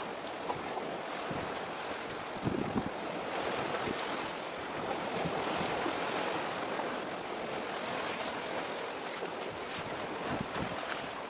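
Wind blowing over the microphone with the wash of choppy sea water, a steady rushing noise broken by a few low gusts.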